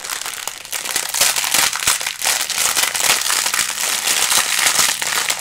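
Dry uncooked noodles cracking and snapping inside a sealed plastic snack bag as it is squeezed and crushed by hand, the wrapper crinkling with them: a dense, continuous crackle.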